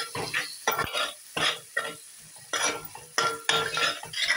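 Metal ladle stirring and scraping a masala paste frying in oil in a metal pot, in quick repeated strokes with a faint metallic ring. There is a brief pause shortly after the middle.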